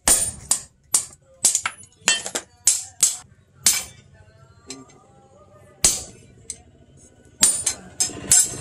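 Hammer blows on a hot steel knife blank cut from a chainsaw bar, struck on an anvil: a run of sharp strikes about two a second, a pause with one lone blow, then a quicker run of strikes near the end.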